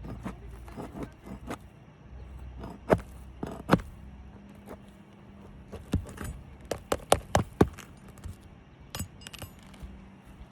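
Sharp metallic clicks and light scraping of a hand tool working under composition roof shingles to get at and pull the nails, with a quick run of several clicks about two-thirds through.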